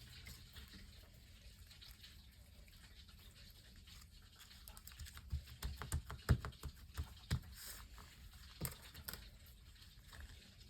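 Slime-making supplies being handled on a tabletop: a quiet stretch, then a cluster of light taps and clicks about halfway through, as small add-ins and a plastic container are handled.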